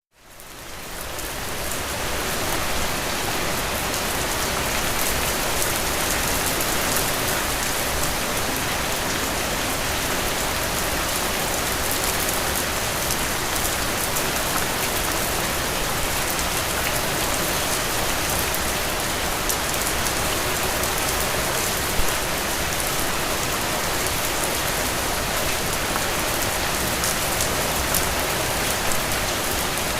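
Steady heavy rain falling on a surface, a dense even hiss with fine drop patter, fading in over the first couple of seconds.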